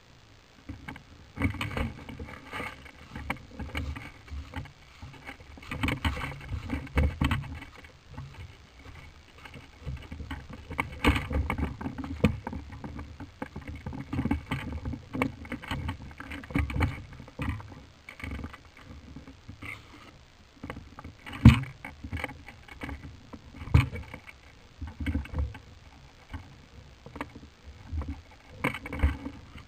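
Irregular rustling and knocking of movement close to the microphone, with a few sharp knocks; the loudest comes about two-thirds of the way through.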